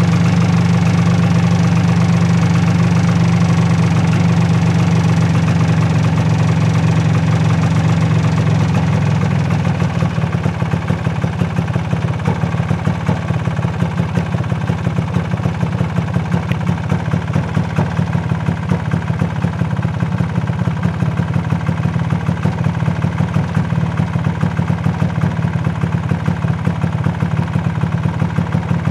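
An engine running steadily with a low hum. About nine seconds in it drops a little in level and settles into a rapid, even pulsing beat.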